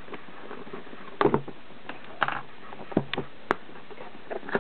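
Cardboard action-figure box being handled while its taped top is worked open: scattered rustles and clicks, with one sharp click about three and a half seconds in.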